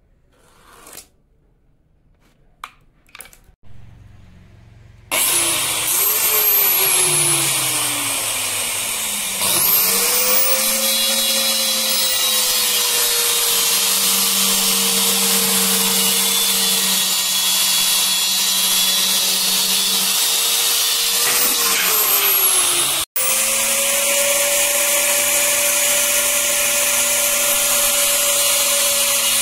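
A few light clicks and knocks, then about five seconds in an electric power tool starts up and runs at high speed, working teak wood. Its whine dips and climbs in pitch as it is loaded, and it breaks off for an instant near the end before running on steadily.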